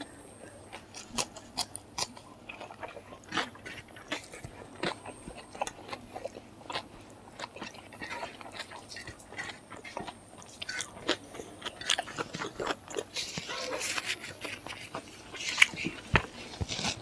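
Close-up chewing with frequent crisp crunches as mouthfuls of rice, fried pork and crisp papad are eaten, with fingers mixing food on the plate. The crunching gets busier near the end.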